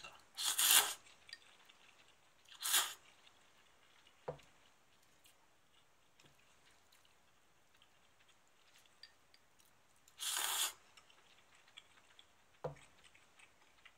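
Quiet sounds of eating chilled sōmen from a glass bowl: three short airy noises, the longest about ten seconds in, and two light taps of chopsticks or glassware, about four seconds in and near the end.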